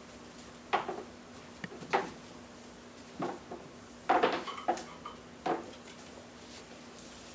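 Half a dozen sharp knocks and clatters, irregularly spaced, with the loudest cluster about four seconds in.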